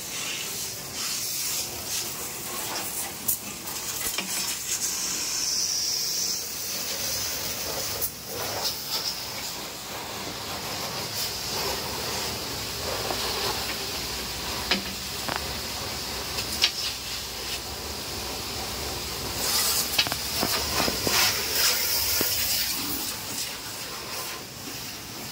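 Pressure-washer water jet hissing steadily as it sprays the inside of an island freezer, with a few sharp knocks and a louder stretch of spraying toward the end.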